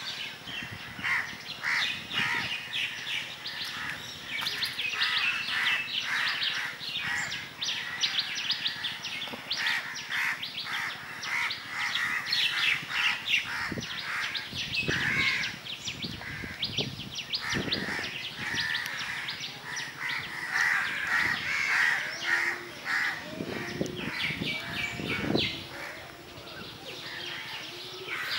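A dense chorus of birds chirping and calling, with rapid short calls overlapping all the way through and some harsher calls among them.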